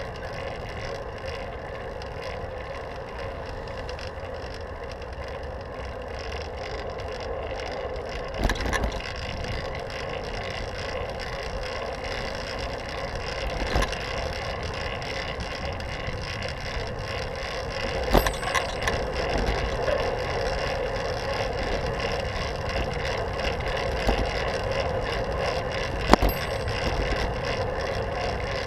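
Fixed-gear bicycle riding along a paved street: a steady whir of tyres and drivetrain with some wind, broken by a few sharp knocks as the bike jolts over bumps in the road.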